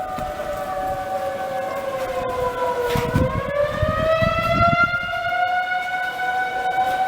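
Outdoor tornado warning sirens sounding for an active tornado warning. Two sustained wailing tones overlap: one holds steady, while the other dips in pitch about three seconds in and climbs back up.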